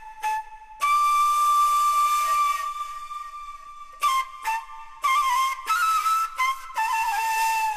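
Music played from a vinyl record on a Thorens TD-126 turntable: a flute-like melody of held notes with small steps in pitch, broken by several short gaps.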